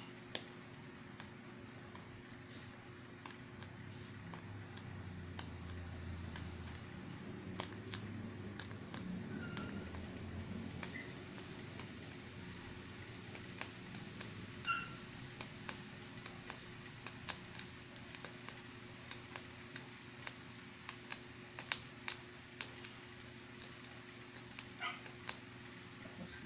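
Scattered small clicks and taps from hands handling pattern paper and cloth, coming more often in the second half, with a few short, faint high chirps in the background.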